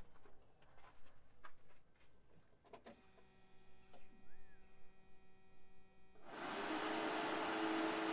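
The Derale Hyper-Cool transmission cooler's twin electric fans switch on about six seconds in and run steadily, with the engine off: a steady rush of air with a low hum, a little loud. Before that there is only a faint click.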